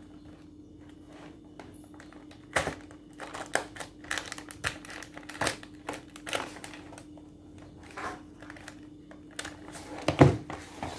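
Magnum Classic carton being opened and a foil-wrapped ice cream bar pulled out: quick, irregular crinkling and rustling of the wrapper and cardboard. Near the end there is a knock as the box is set down on the table, over a faint steady hum.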